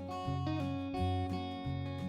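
Background music: acoustic guitar playing plucked and strummed notes over a steady bass line.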